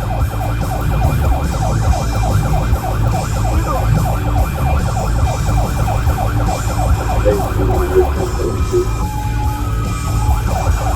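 Police car siren in a fast yelp: rapid repeating rising sweeps over a steady low engine and road rumble. About nine seconds in it changes to a steady held tone for a second or so, then the quick sweeps return.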